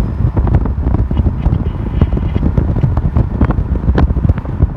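Heavy wind buffeting on the microphone from an open window of a moving car, a steady low rumble with frequent sharp crackling pops.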